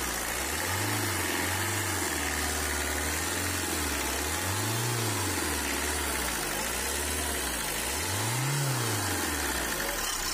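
Tata four-cylinder diesel engine running under the open bonnet, its revs raised about a second in and then blipped up and back down twice. This is the engine run that pushes flushing water through the radiator and cooling system.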